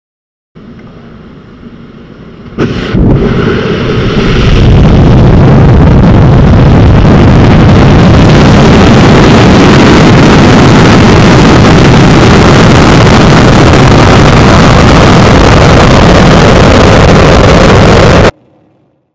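Atlas V rocket's RD-180 first-stage engine at liftoff, a deep, very loud, steady roar. It begins faintly about half a second in, jumps up suddenly after about two and a half seconds, builds to full loudness a couple of seconds later, and cuts off abruptly near the end.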